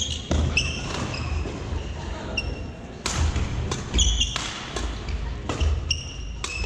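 Badminton rally on a sprung wooden gym floor: several sharp racket strikes on the shuttlecock, court shoes squeaking, and footsteps thudding as the players lunge and move.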